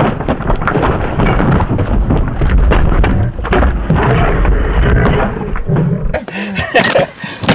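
Loud wind buffeting on the microphone, a deep gusty rumble with no steady engine note. About six seconds in it cuts abruptly to a different, clearer scene with voices.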